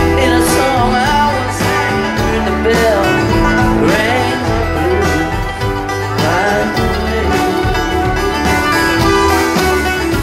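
A live string band playing in a bluegrass vein, with plucked strings and sliding melody notes over a steady bass and beat.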